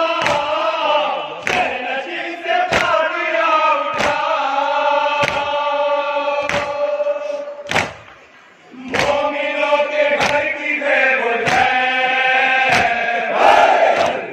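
A group of men chanting a noha (Shia lament) in unison, with a sharp beat of matam (chest-beating) striking about every second and a quarter to keep time. The chanting breaks off briefly about eight seconds in.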